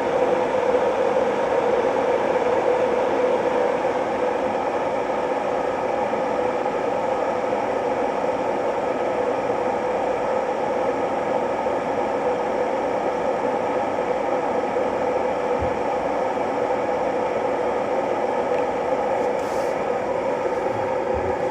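Ovente KG83B glass electric kettle heating water, a steady hiss and rumble as the water nears the boil.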